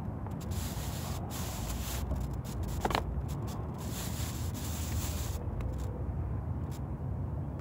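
Plastic wrapping rustling and crinkling in short stretches as it is handled around raw meat, over a steady low rumble of wind on the microphone.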